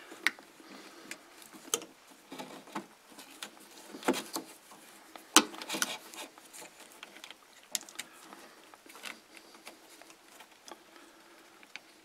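Scattered light clicks and taps of a plastic self-contained switch, its cable and a screwdriver being handled while wiring, irregular and sparse, the sharpest about five seconds in, over a faint steady hum.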